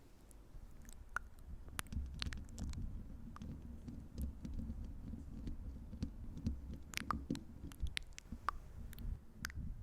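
Close-miked ASMR trigger sounds: a continuous low rubbing rumble on the microphone with scattered sharp, wet clicks, the kind made by sticky mouth sounds or fingertips working close to the mic.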